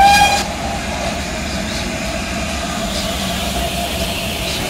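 GWR King class steam locomotive 6023's whistle ends its blast about half a second in, rising slightly in pitch as it stops. After it comes a steady hiss of steam over a low rumble from the standing engine.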